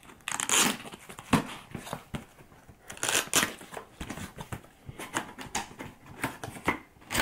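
Cardboard box being opened by hand: its packaging tape and flaps picked at and torn, giving irregular crinkling and ripping noises.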